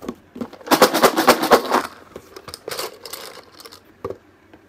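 Raffle tickets being shaken and stirred inside a lidded box: a dense rattle of rapid clicks and rustles for about a second, then lighter, scattered rustling and a single click near the end.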